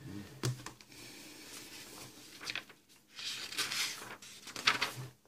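Paper rustling in several bursts as the pages of a booklet are handled and turned, with a few soft bumps.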